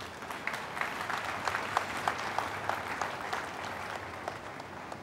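Congregation applauding: many hand claps over a crowd haze, thinning out near the end.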